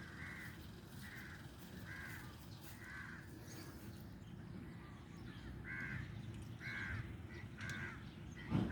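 A bird calling with short calls about once a second: four calls, a pause of about two seconds, then three more. A short knock sounds just before the end.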